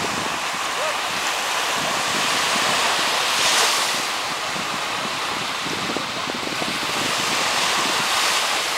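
Small sea waves washing onto the beach, with wind on the microphone; the wash swells twice, a few seconds apart.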